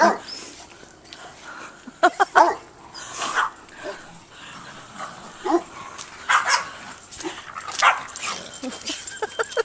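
A dog whining and yipping in excited greeting, in short high calls repeated every second or two.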